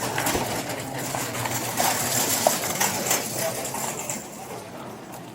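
Rustling and knocking from clothing and gear against a body-worn camera's microphone as the wearer walks, with indistinct voices behind it; it eases off about four seconds in.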